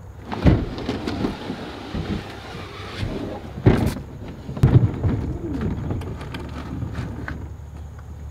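Plastic hull of an Old Town Sportsman Autopilot 120 fishing kayak scraping and rumbling as it is dragged out of a van's cargo floor, with heavy thumps about half a second in and twice more around four to five seconds in as it tips down and is set on the pavement.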